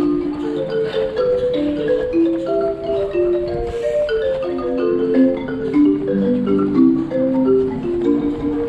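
Background music carried by a quick melody of short, struck notes in a marimba-like tone.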